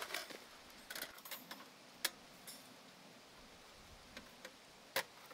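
A few sharp clicks and clinks at irregular intervals over a quiet background, the loudest about two seconds in and near the end.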